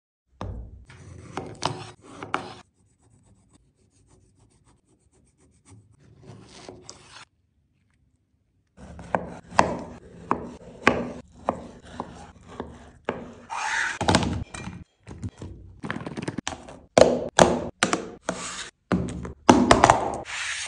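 Kitchen knife cutting through cantaloupe and knocking on a cutting board: separate slicing scrapes and knocks with pauses between them. Near the end comes the handling of a plastic food container.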